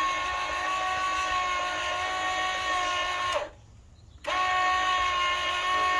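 RAM EJ-3520 electric power tongue jack motor running with a steady whine, not very loud. It stops about three and a half seconds in and starts again under a second later.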